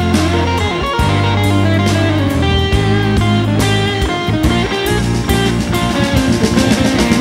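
Background music: blues-rock with electric guitar and drums.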